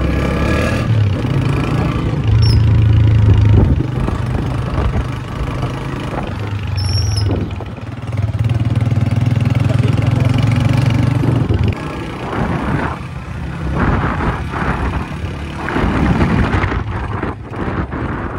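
Motorcycle engine running under way on a dirt road, with wind and road noise. About twelve seconds in the engine note drops away, leaving bumpier, rattling road noise. Two brief high squeaks come early on.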